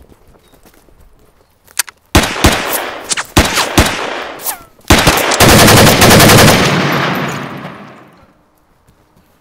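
Gunfire: several single shots with echo starting about two seconds in, then a long rapid burst of automatic fire about halfway through that dies away over a couple of seconds.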